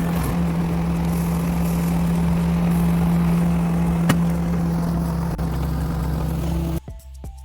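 Mini track skid steer engine running steadily at a constant high speed, with one sharp knock about four seconds in. Near the end it cuts off abruptly to background music with a beat.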